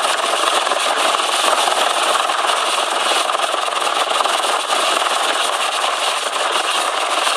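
Search-and-rescue helicopter hovering close overhead: a loud, steady rush of rotor and engine noise that does not let up.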